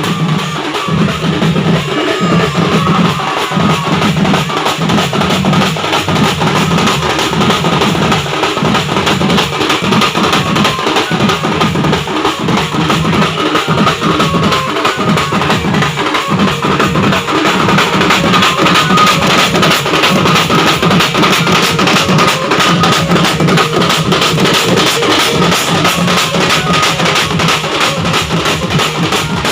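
A village band playing loud, continuous music: fast, steady drumming under a held melody line.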